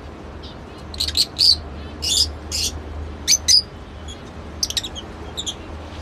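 Lovebirds chirping: clusters of short, shrill, high-pitched calls, loudest about a second and a half in and again around three and a half seconds, with quicker, fainter chirps near the end.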